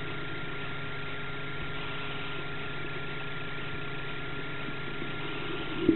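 Steady mechanical hum with a faint, steady high tone above it, ending in a sudden loud knock right at the end.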